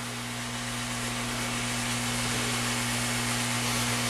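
Steady hum and hiss of bench equipment running: a low constant hum with a higher overtone over an even fan-like hiss.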